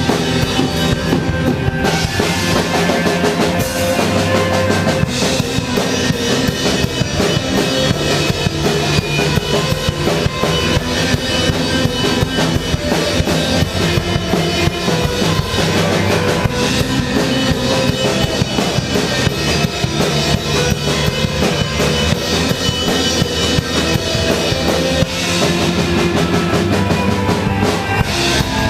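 Punk-rock band playing live, an instrumental passage with full drum kit, bass and distorted guitars.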